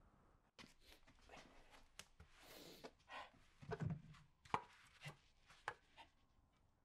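Quiet handling of wooden off-cuts: light wooden knocks and clicks, roughly one a second, with a short rustle partway through.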